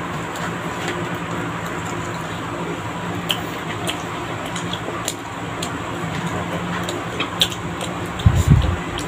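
Mouth sounds of children eating chicken and rice by hand: scattered soft clicks and smacks of chewing over a steady background hum, with a low thump about eight seconds in.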